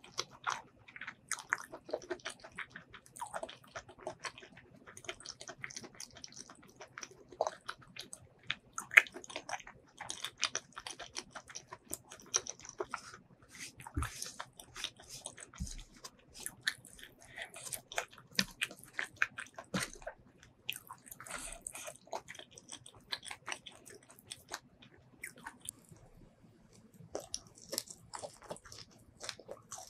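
Close-miked chewing and biting of rice and shrimp curry eaten by hand, with wet mouth clicks and smacks coming in irregular runs, and a short lull a little before the end.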